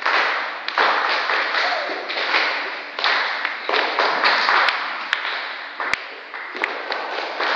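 A ring of children clapping steadily together, mixed with a hum of voices, and a few sharp knocks about two-thirds of the way through.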